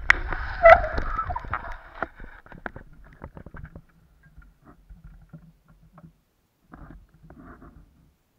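Bicycle rolling over a forest path: rumble and rattling clicks with a short squeak, dying away within the first two to three seconds as the bike stops. After that only faint scattered rustles and knocks.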